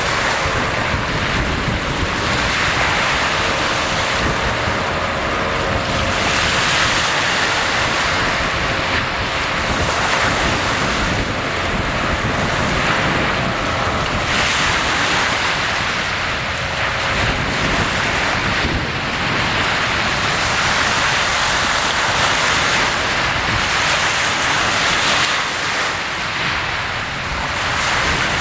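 Sea waves breaking and washing in without a break, swelling every four or five seconds, with wind on the microphone.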